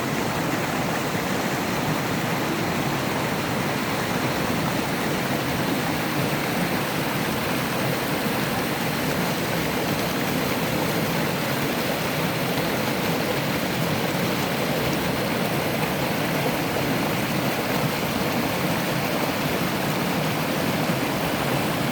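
Mountain stream water cascading over rocks in small falls, a steady rushing with no change.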